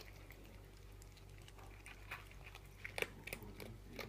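Cat eating, with irregular sharp clicks of chewing, bunched about two seconds in and again around three seconds in.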